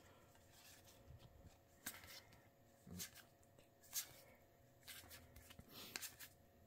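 Faint swishes and light snaps of trading cards sliding against each other as a hand of cards is flipped through one by one, about once a second, the clearest about four seconds in.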